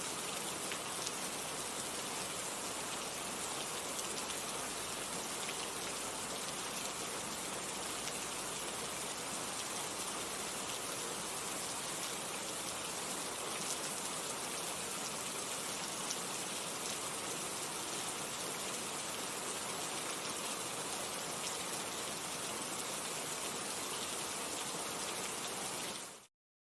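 Steady rain falling, with scattered drops ticking through it; it fades out quickly near the end.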